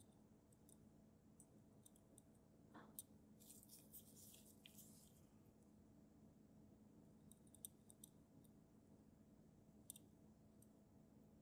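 Near silence, with faint, tiny clicks of steel tweezers and a pegwood stick touching a pocket watch movement as a small screw is placed. The clicks come in a cluster about three to five seconds in and then singly a few more times, over a faint steady room hum.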